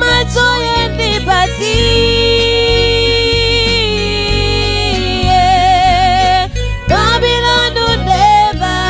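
Gospel song performed by a small band: a woman singing long held notes with vibrato over electronic keyboard, bass guitar and drums.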